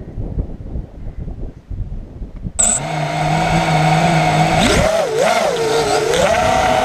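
Wind buffeting the microphone, then about two and a half seconds in a racing quadcopter's electric motors start whining. The whine holds steady at first, then its pitch swoops up and down as the throttle changes.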